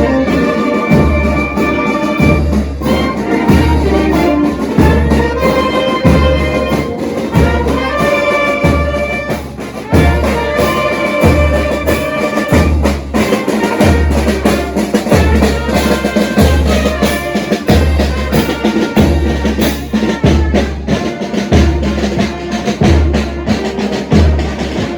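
Brass band playing in a parade: trumpets and trombones hold notes over a steady bass drum beat of about five beats every four seconds.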